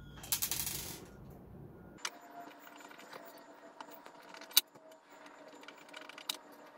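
Small screwdriver driving the tiny screws into the plastic lid of a LevelMate Pro: faint scattered clicks and ticks of the bit and screws, with one sharper click about four and a half seconds in. A short rattling clatter of the parts being handled comes in the first second.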